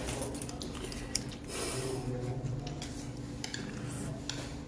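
Small, irregular clicks and light scrapes of a thin metal pick working eggshell fragments off the membrane of a raw egg.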